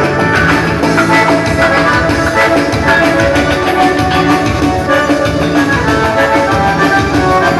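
Loud live band dance music with drums, a steady beat and held melodic notes.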